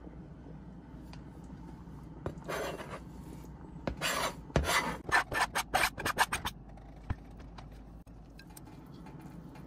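Chef's knife blade scraped across a plastic cutting board, pushing chopped cilantro off into a pot: one short scrape, then about a second later a quick run of about eight short scraping strokes.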